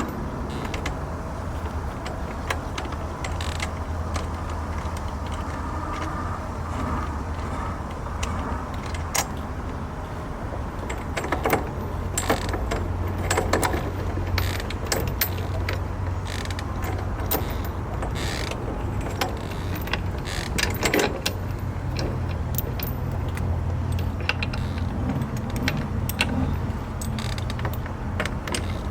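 Irregular metallic clicks, clinks and knocks, as of hardware and tools being handled, over a steady low hum. The clicks come more often from about a third of the way in.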